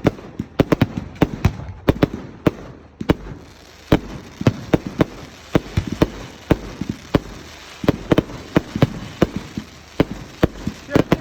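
Fireworks display: a rapid, irregular string of sharp bangs and cracks, several a second, with a brief lull about three and a half seconds in.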